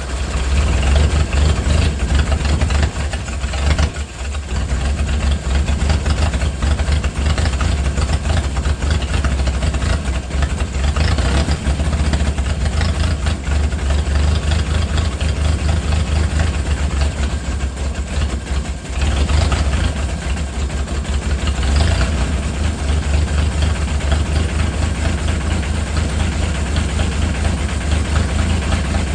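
A small tractor's diesel engine, just started from cold after glow-plug preheating, running steadily at a high idle and briefly sagging twice, about four seconds in and again past halfway.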